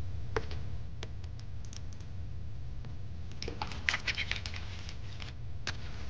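Small clicks and handling noises of plastic over-ear headphones being picked up and put on and a boom-arm microphone being pulled into place, scattered and thickest about halfway through, over a steady low hum.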